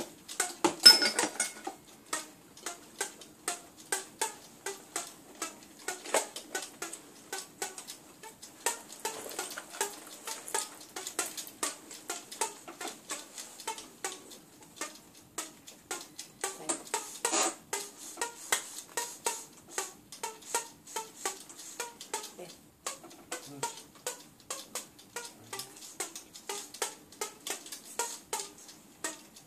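Taut fishing line on a rod with a large conventional reel, plucked by hand like a one-string instrument: a continuous run of short plucked notes, a few a second, played as an improvised jam.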